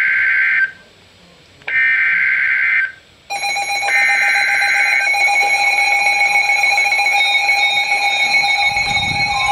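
Emergency Alert System SAME header on NOAA Weather Radio: three buzzy data bursts of about a second each, a second apart, signalling an incoming warning. About three seconds in, a steady electronic alert alarm starts over the third burst and keeps sounding.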